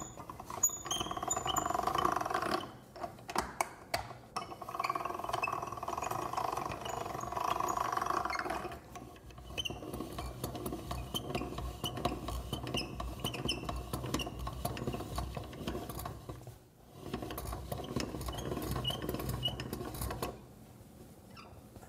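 Hand-cranked pasta machine being turned, its gears and rollers clicking in a quick, steady rhythm as ramen dough goes through the rollers and then the noodle cutter. The cranking stops briefly twice.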